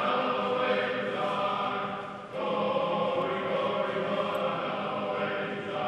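Choir singing slow, held chords, with a brief dip and a change of chord about two seconds in.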